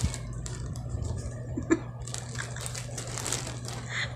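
Plastic courier pouch crinkling and crackling as it is handled and opened.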